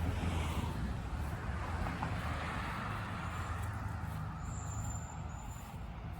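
Engine of a vehicle or construction machine running with a steady low rumble, easing off slightly, with a brief high-pitched squeak about four and a half seconds in.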